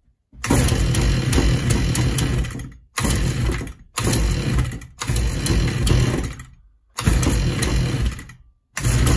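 Shindaiwa M242 string trimmer's small two-stroke engine running on its new ignition coil, loud and rough. It comes in stretches of one to two and a half seconds, several fading off, each broken by a sudden short silence.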